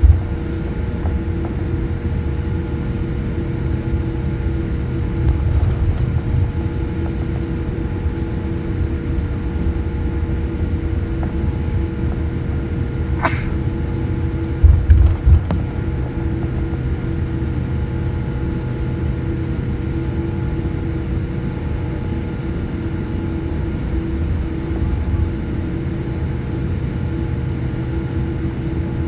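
Steady rumble and hum inside a jet airliner's cabin as it taxis before takeoff, with engines and air systems running. A couple of low thumps come about halfway through.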